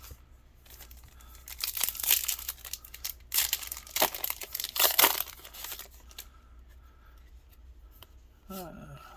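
Foil booster pack of trading cards being torn open and crinkled, loudest in a run of tearing from about one and a half to six seconds in, then quieter rustling.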